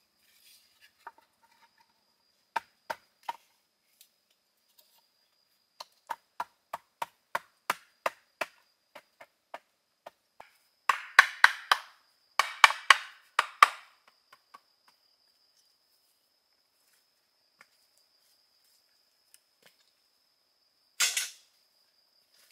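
A blade chopping bamboo: single sharp strikes, then a quick run of about two a second, then denser crackling clusters of blows in the middle, and one last strike near the end.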